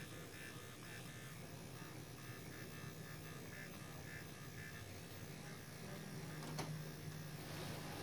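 Faint steady electric buzz of a motorised Nano-Fill nano-infusion pen running as it is worked over the skin of the forehead, with a single short tap about two-thirds of the way through.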